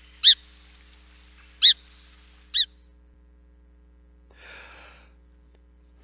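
Song sparrow call notes: three short, sharp chips, a soft bark, the first two about a second and a half apart and the third close behind.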